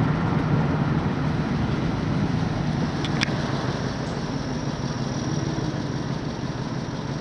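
Vehicle engine running steadily with a low hum, with one brief click about three seconds in.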